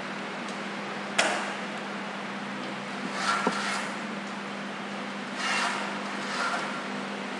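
Wooden ice cream sticks and a glue gun being handled on a paper-covered table: a sharp knock about a second in, then two spells of scraping and rustling as sticks are rubbed and pressed together, over a steady hum.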